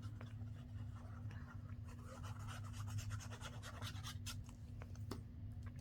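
Paper craft pieces being handled and rubbed down: faint scratchy rustling and light clicks, busiest in the middle, over a steady low hum.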